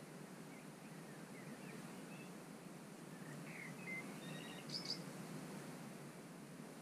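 Faint dawn birdsong by a lake: scattered short chirps and whistles from small songbirds, the loudest a quick burst of high notes about five seconds in, over a steady low background rumble.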